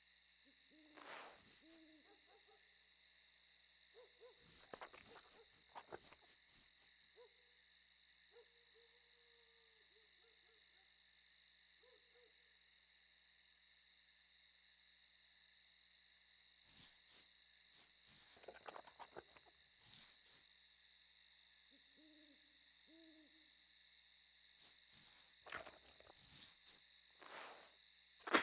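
Night ambience: an owl hooting now and then over a steady high chirring of insects, with a few soft knocks.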